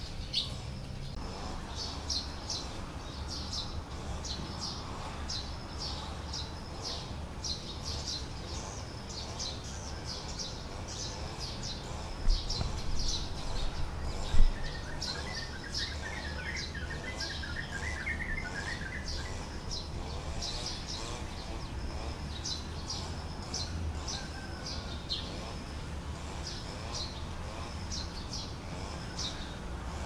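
Small birds chirping over and over in short, high calls, with a spell of lower twittering in the middle, over a steady low rumble. Two louder thumps come near the middle.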